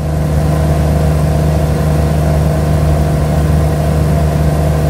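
Cessna 175's piston engine and propeller droning steadily at a constant power setting, with a strong low hum.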